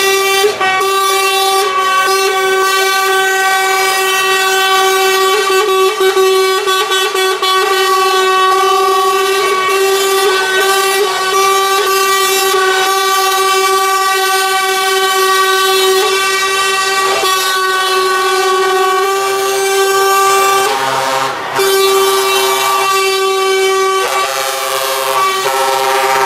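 Truck air horns blowing in long, held blasts, one steady chord, breaking off briefly past the middle and changing pitch near the end as another horn takes over.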